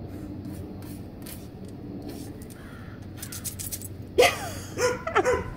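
Scattered soft clicks, then from about four seconds in a bird gives several loud, harsh calls in quick succession.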